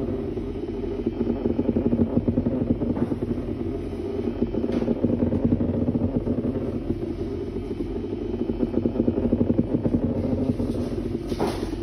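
Banana-shaped vibrator buzzing continuously on a hard tabletop on a strong setting, rattling against the surface as it creeps along. The buzz alternates every few seconds between a choppy pulsing and a steadier hum.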